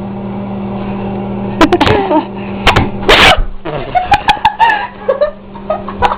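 Microwave oven running with a steady low hum while it heats an egg. A sudden loud noisy burst comes about three seconds in, after a couple of sharper clicks.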